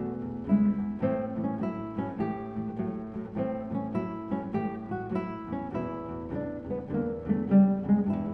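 Two nylon-string classical guitars playing a blues duet: a steady run of fingerpicked notes and chords.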